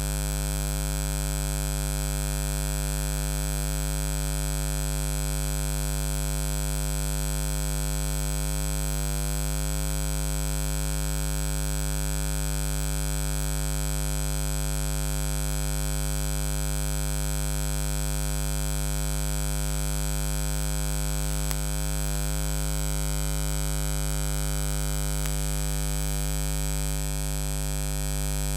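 Steady electrical hum with hiss, unchanging throughout, with a faint click about two-thirds of the way through.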